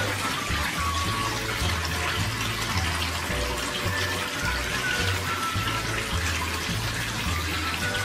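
Water trickling steadily from a terracotta tabletop fountain, thin streams falling from the upper bowl and splashing into the basin below, under background music with low bass notes.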